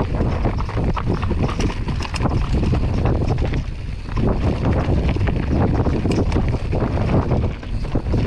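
Wind buffeting the microphone as a Giant Stance 29 mountain bike rolls fast down a rocky dirt trail, its tyres crunching over loose rock and the bike rattling and clattering with many sharp knocks.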